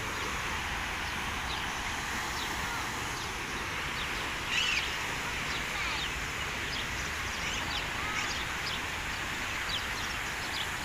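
Small birds chirping on and off in short calls, one a little louder about halfway through, over a steady rushing background noise.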